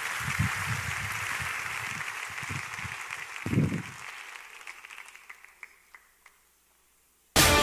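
Audience applauding, the clapping dying away over about six seconds, with a few low thuds in the first four seconds, the loudest about three and a half seconds in.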